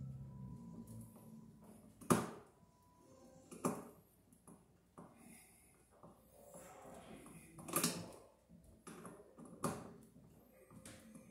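A screwdriver working on a metal electrical junction box: four sharp metallic clicks or knocks, a second or two apart, with quieter scraping and rustling in between.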